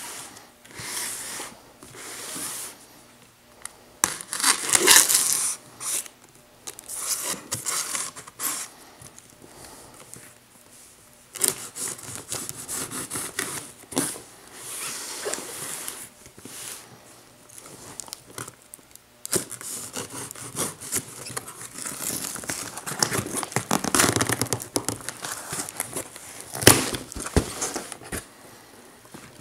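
Knife slitting the packing tape on a cardboard shipping box, with tape tearing, cardboard scraping and flaps being pulled open in irregular rasping bursts. A sharp click near the end.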